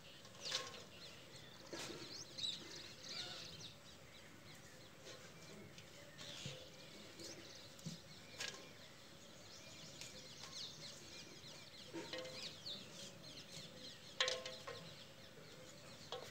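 Faint birds chirping and calling throughout, with a few short rustles and knocks as dry grass and fodder scraps are gathered by hand into a metal tub, the sharpest knock about 14 seconds in.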